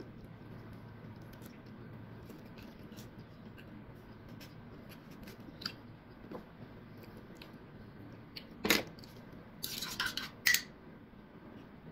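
Small clicks and scrapes of a knife working a piece of orange. Near the end comes a sharp knock, then about a second of scraping and clinking as a stirrer works juice in a paper cup.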